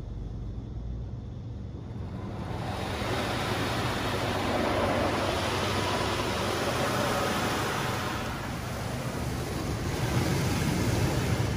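Water spray from a Laserwash G5 touchless car wash hitting the car's roof and sunroof glass, heard from inside the cabin over a steady low rumble. The spray comes in about two seconds in, eases off briefly, and builds again near the end.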